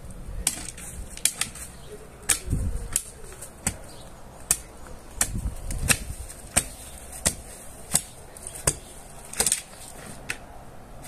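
A garden hoe chopping into loose, soft soil: a steady run of sharp strikes, about one every 0.7 seconds.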